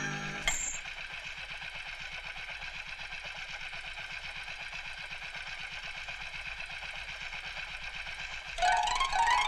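A coin flicked into the air with a short high ring about half a second in, as the music cuts off. Then a motorcycle engine idling with a steady, even throb, until string and guitar music comes back in near the end.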